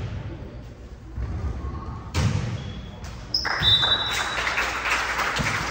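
A ball thudding on a gym floor, with a couple of hits about two and three and a half seconds in, then a louder din of voices from about four seconds in.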